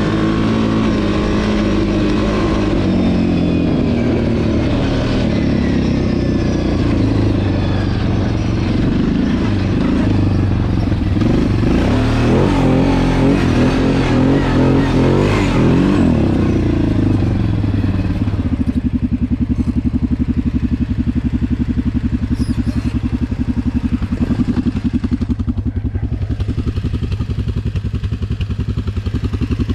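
Kawasaki KFX 700 quad's V-twin engine running as it is ridden, its pitch rising and falling with the throttle. About two-thirds of the way through it drops to a steady, evenly pulsing idle.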